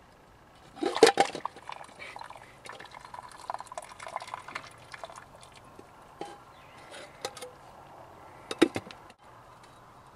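Water splashing and trickling as cooked spaghetti is drained from a porcelain-enamel cookpot, with sharp metal clanks of the pot and lid about a second in and again near the end.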